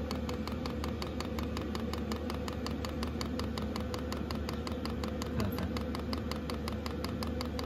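Fuel dosing pump of a 5 kW Chinese diesel heater ticking steadily several times a second as it feeds fuel, wrapped in foam pipe lagging, over a steady low hum from the running heater. No resonance is carried through its strap mounting.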